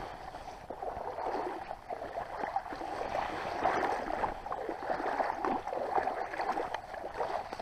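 Rustling and uneven footsteps of someone pushing through wet grass and brush at the water's edge.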